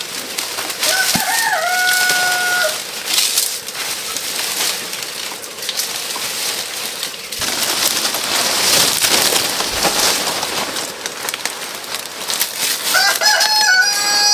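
Rooster crowing twice: a long held crow about a second in and another starting near the end, over a steady crackling, hissing noise.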